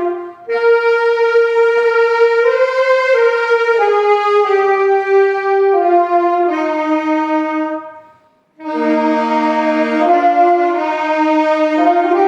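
Instrumental church music: a wind instrument, saxophone-like, plays a slow melody of long held notes. Near the end there is a short break of about half a second, and then it goes on with several parts sounding together.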